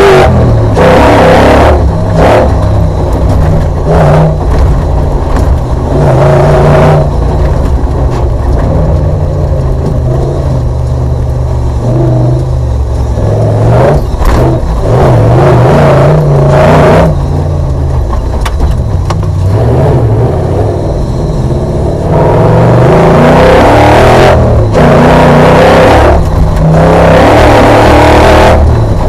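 Audi V8 engine of an off-road racing special, heard from inside the cockpit under hard driving. It revs up and eases off again and again, its pitch stepping up and down, with the longest full-throttle pull near the end.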